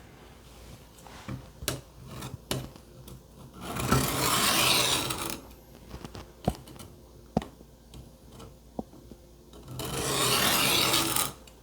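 Steel knife blade drawn along the coarsest stone of a Work Sharp Benchstone sharpener: two long rasping strokes, one about four seconds in and one near the end, with light clicks of the blade on the stone between them.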